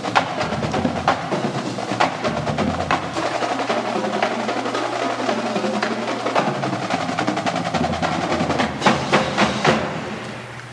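Marching drumline of snare drums, bass drums and cymbals playing a drum cadence, with a run of loud hits about nine seconds in before the sound drops away, heard through a low-quality cassette tape transfer.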